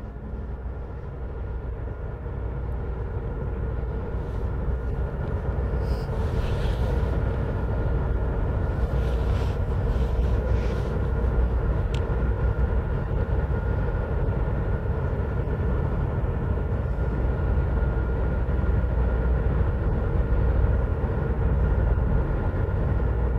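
Steady low diesel rumble of a harbour tug's engine working, with a faint steady hum above it, growing louder over the first few seconds and then holding.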